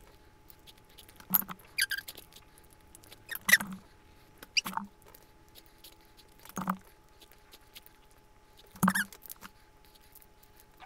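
Snow crab leg shells cracked and snapped apart by hand: about six short, sharp cracks with squeaky creaks, a second or two apart.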